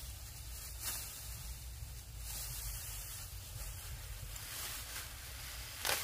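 Ripe rice stalks rustling as they are gathered and cut by hand with a sickle, with a few brief crisp swishes over a low steady rumble.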